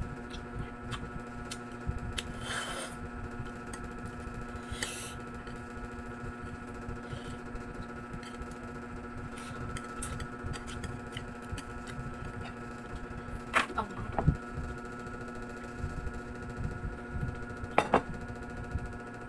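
Close-up eating sounds: chewing noodles, with two short slurps early on and many small clicks of wooden chopsticks against a plate. There are a couple of sharper knocks, around the middle and near the end, and a steady hum underneath.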